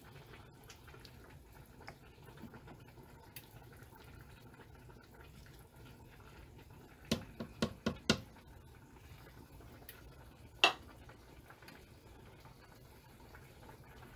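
A few light knocks of a wooden spoon against the cooker's pot while stirring: a quick run of about five clicks some seven seconds in and one sharper click near eleven seconds, over a faint low hum.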